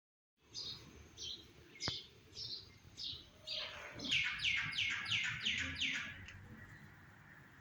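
A songbird calling: a string of short notes that each sweep downward in pitch, spaced about half a second apart at first, then a quicker run of about seven notes about four seconds in. A single sharp click near two seconds in.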